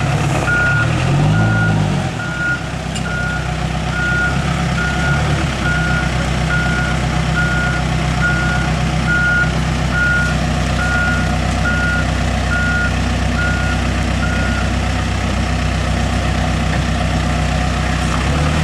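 Heavy diesel engine of a backhoe loader running, rising and falling once in revs about a second in. Over it a reversing alarm beeps steadily, a little more than once a second, and stops a few seconds before the end.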